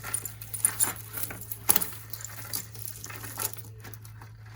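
Beads and jewelry pieces clicking and rattling together as a tangled beaded necklace is handled, in a run of small irregular clicks with one sharper click a little under two seconds in.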